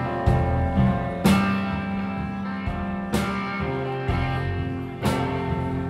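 Live rock band playing an instrumental passage: electric guitar chords ringing out over drums, with heavy accented hits about every two seconds.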